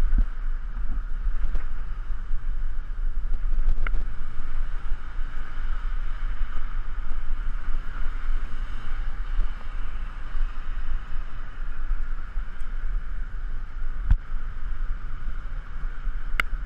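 Wind buffeting a bicycle-mounted GoPro's microphone during a ride, a steady low rumble with a hiss of traffic and tyre noise over it. A few sharp knocks break through, the loudest near the end.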